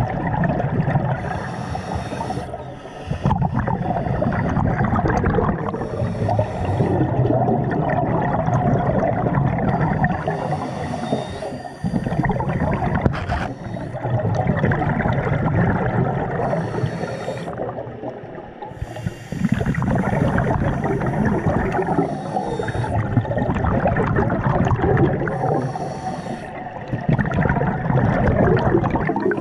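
Scuba diver breathing through a regulator underwater: a short hiss on each inhale, recurring every four to six seconds, between long gurgling rushes of exhaled bubbles.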